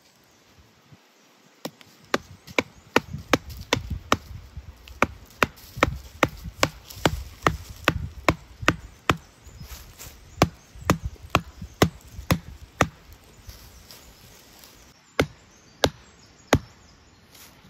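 A hand blade chopping into the wooden stem of a sapling at its base: a steady run of sharp strikes, about two to three a second, then three slower, spaced strikes near the end.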